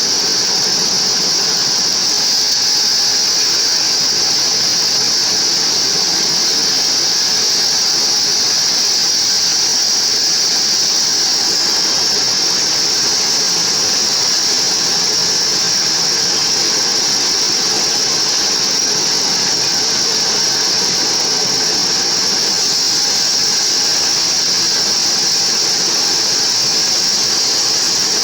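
Homemade band sawmill sawing mahogany, a steady high-pitched whine over the running machine noise, unchanging throughout.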